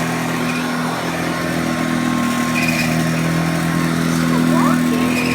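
Hoover Junior 1224 upright vacuum cleaner running steadily on carpet, a constant motor hum with its beater brush working the carpet.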